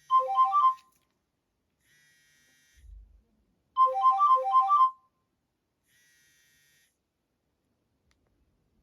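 Nokia E65 ringtone: a short, quick phrase of bright electronic notes, played twice with a pause of about three seconds between.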